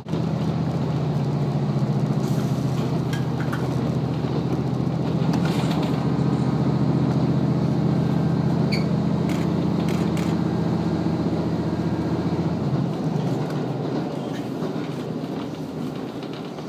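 Diesel railcar running, heard from inside the carriage: a steady engine drone under the rolling noise of the wheels, with a few short clicks. The drone fades about thirteen seconds in and the whole sound grows quieter.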